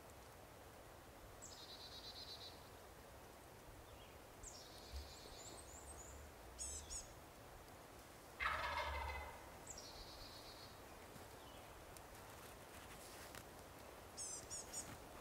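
A wild turkey gobbler gobbles once about eight seconds in, a single loud rattling gobble. Songbirds give several high trilling calls around it.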